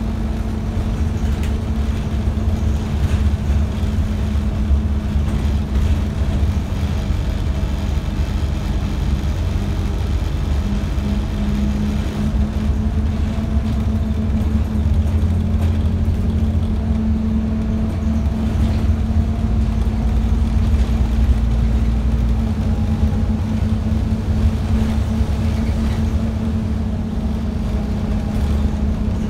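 Scania double-decker bus under way, heard from its upper deck: steady low engine drone and road rumble with a held hum.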